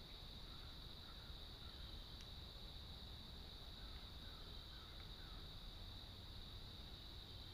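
Faint, steady, high-pitched cricket chorus over a low rumble of woodland ambience, with a few soft chirps about four to five seconds in and a faint click about two seconds in.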